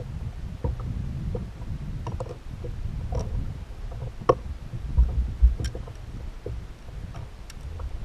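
Water slapping against a plastic fishing kayak's hull with a steady low wind rumble on the microphone, over small clicks and knocks from fishing line and gear being handled. Two heavier thumps come about five seconds in.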